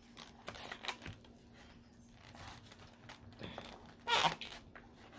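Knife and fork cutting through pancakes in a takeout container, making scattered scrapes, taps and crinkles, with a louder scrape about four seconds in.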